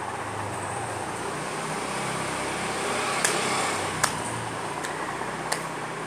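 Steady background hum and hiss, like a fan or distant traffic, broken by four short, sharp clicks in the second half.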